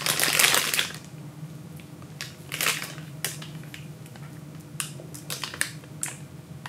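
Clear plastic bag crinkling and rustling as it is handled. A long, loud rustle comes in the first second, followed by several shorter crinkles and light clicks.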